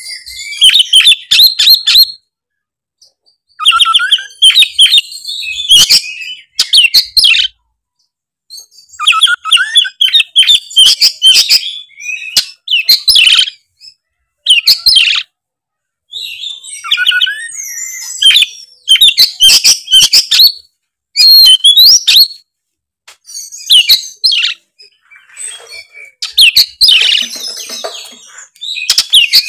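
Oriental magpie-robin (kacer) singing loudly in full song: phrases of quick whistles mixed with harsh clicking and chattering notes, each a second or a few seconds long, with short silent pauses between them.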